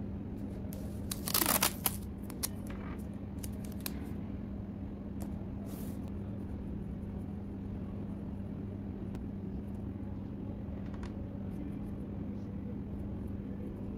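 Paper being handled on a tabletop: a short burst of crinkling, tearing rustle about a second in, then a few lighter clicks and rustles. Under it a steady low hum.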